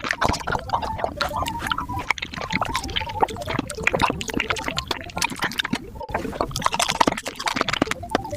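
Close-miked eating of juicy fruit: rapid wet bites, crunches and mouth smacks packed densely together in a sped-up track.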